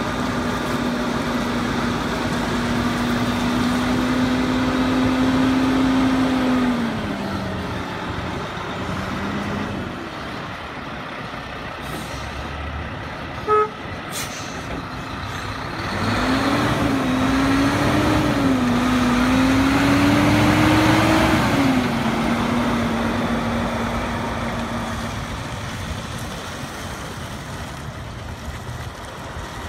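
Truck engine running with a steady note that drops as it eases off about a third of the way in. A brief sharp blip comes near the middle. The engine then revs up and down for several seconds before settling and fading.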